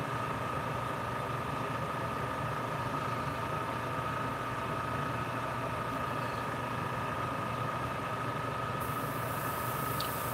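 Steady hum of a small motor with a constant whine, from the airbrush painting setup. A higher hiss joins about nine seconds in.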